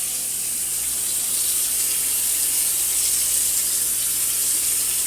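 Kitchen sink tap running steadily into the sink during washing up, a constant hiss of water.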